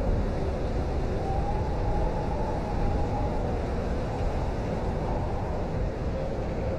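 Blizzard wind blowing steadily, a dense rush of noise heaviest in the low end, with a faint howling whistle that slowly rises and falls in pitch.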